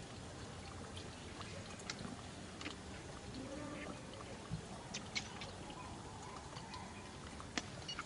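Faint scattered clicks and rustles over a steady background hiss, with a brief faint call about three and a half seconds in.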